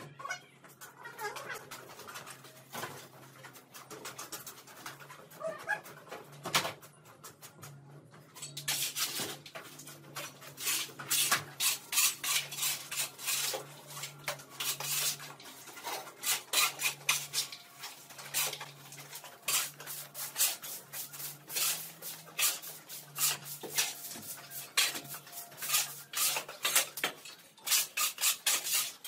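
A long-handled metal tool scraping dirt and debris along a concrete floor in repeated strokes: a few scrapes at first, then a steady run of strokes from about eight seconds in.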